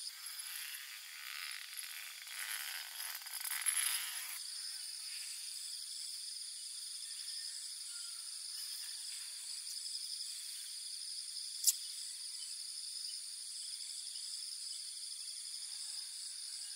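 Dusk insect chorus of crickets, a steady high trilling with a regular pulse. Fabric rustling of the tent door being opened during the first four seconds, and a single sharp tick about two-thirds through.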